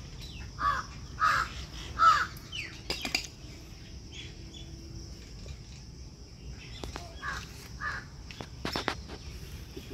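A crow cawing: three caws about half a second apart, the last the loudest, then two more caws several seconds later. A couple of sharp clicks fall in between, over a steady high insect drone.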